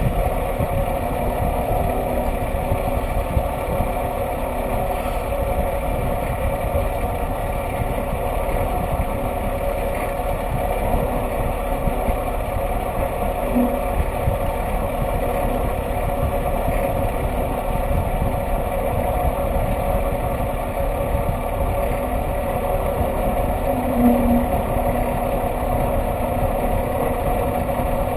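Fire water tender's engine running steadily as the truck drives off-road over rough ground, a constant drone with an even pitch.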